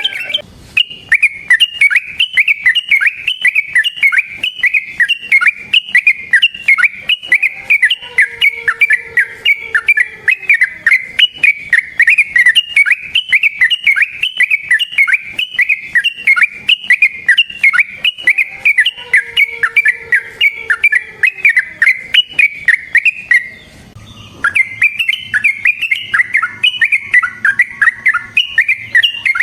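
Yellow-vented bulbul (trucukan) singing a long, rapid run of repeated chattering whistled notes, breaking off briefly about three-quarters of the way through before starting again.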